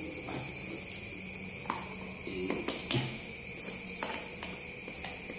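A few light knocks and taps as a small plastic bucket is handled and lifted, most of them about two and a half to three seconds in, over a steady hiss.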